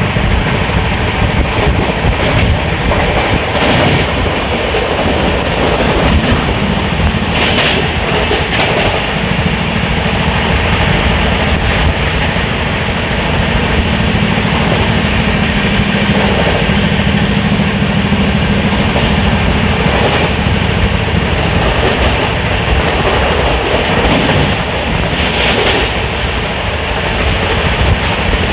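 Gujarat Sampark Kranti Express passenger train running at speed, heard from an open coach door: loud, steady wheel-and-rail running noise with rushing air. A few sharper clatters stand out, around four seconds in, at eight seconds and near the end.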